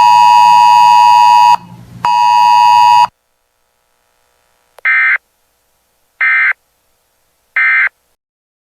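Weather radio alert tones: a loud, steady electronic beep until about a second and a half in, then a second beep of about a second. After a pause come three short identical warbling data bursts about a second and a half apart, the Emergency Alert System end-of-message code that closes the broadcast.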